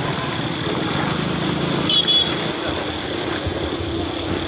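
A motor engine running steadily under wind noise, its low hum fading somewhat after the first second and a half, with a short high tone about two seconds in.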